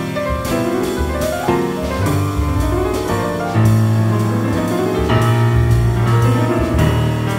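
Acoustic jazz played on a grand piano, quick runs of notes over deep upright bass notes, with a drum kit keeping time on cymbals.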